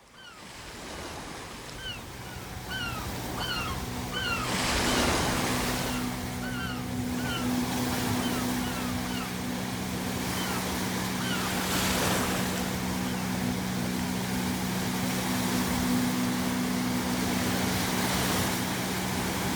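Ocean waves breaking on the shore, with a crash about every six or seven seconds, and seagulls calling in short repeated calls, mostly in the first half. A steady low drone runs underneath, and the sound fades in at the start.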